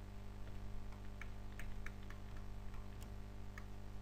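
Light, irregular ticks and taps of handwriting input on a computer as a word is written out, over a steady low electrical hum.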